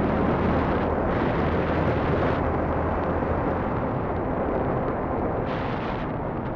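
Steady wind rush buffeting the microphone of a moving motorbike, with a low engine hum beneath it.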